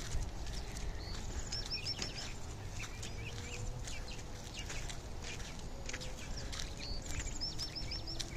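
A songbird sings a short phrase of four or five quick high notes, twice, about six seconds apart, over a low steady rumble with scattered clicks.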